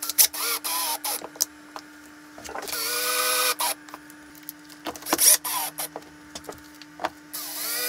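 Cordless drill-driver driving screws through cup washers into an acetal sheet, in about four short runs that wind up in pitch, hold briefly and stop abruptly. Between runs there are small clicks from screws and washers being handled.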